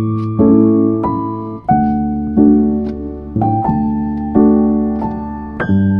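Background piano music: soft chords struck about once a second, each note ringing and fading.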